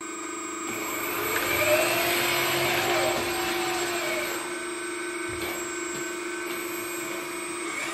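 1:6-scale RC hydraulic skid steer loader (Locust 752 replica) whining electrically as it drives forward. A steady whine runs throughout, and a second whine rises and falls in pitch over the first few seconds, where it is loudest, then settles.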